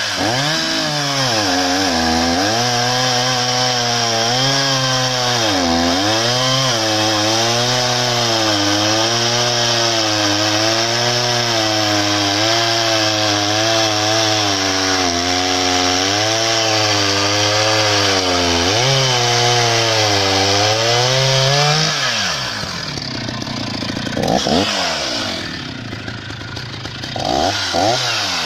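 Freshly rebuilt Husqvarna 480 CD two-stroke chainsaw, with a new cylinder and piston, running at full throttle through logs. Its pitch dips and recovers over and over as the chain loads up in the wood. About 22 seconds in the cut ends and the engine drops back, then it is revved briefly a few times near the end.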